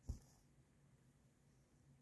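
A single soft thump with a brief swish just after the start, as a cross-stitch needle and floss are drawn through linen fabric; otherwise near silence.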